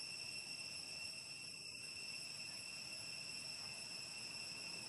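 Steady, high-pitched drone of insects: one unbroken tone with overtones, holding level throughout over faint outdoor hiss.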